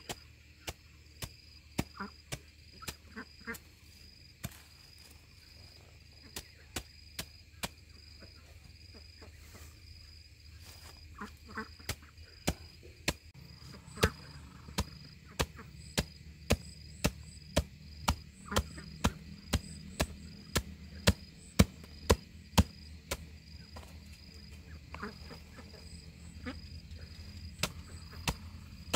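Knife chopping and mincing food, with sharp single strokes: scattered at first, then steadier at about two a second from about midway. Crickets chirp steadily behind it.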